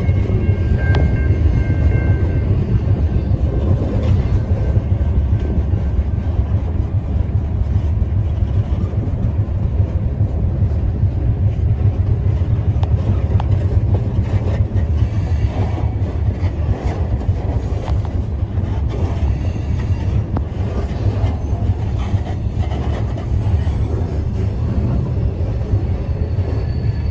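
Freight gondola car rolling along the rails, heard from inside the car: a loud, steady low rumble of wheels and car body, with a faint high squeal in the first couple of seconds and scattered light clanks.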